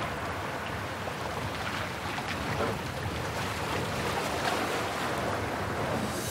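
Sea waves washing against a rocky shore, a steady rushing noise with some wind.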